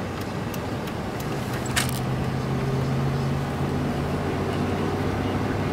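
Interior cab sound of a 1997 Chevrolet K1500 pickup's fuel-injected V8 on a test drive: a steady low engine drone with road noise. The drone firms up and gets a little louder about a second in. A few sharp clicks come in the first two seconds.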